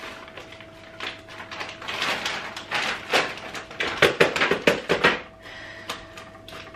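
Frozen okra pieces rattling and clattering as they are tipped from a plastic bag into a plastic blender jar, in irregular bursts that are densest about four to five seconds in.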